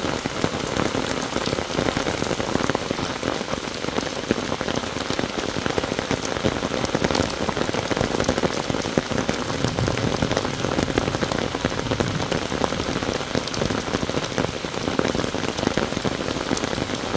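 Heavy monsoon rain pouring steadily onto a wet paved road and plants, a dense, even hiss of drops that holds without letup.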